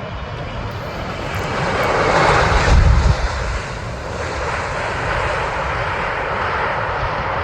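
Jet engines of a landing Boeing 777, the noise swelling to its loudest about three seconds in and then running on steadily.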